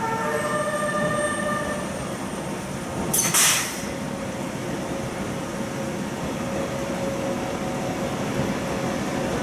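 Freight train hauled by an EH500 electric locomotive running on the rails with a steady rolling rumble. A faint set of pitched tones dies away in the first two seconds, and a short loud hiss comes about three seconds in.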